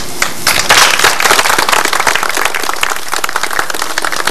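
Audience applauding: many hands clapping, starting about half a second in, fullest around a second in, then thinning out.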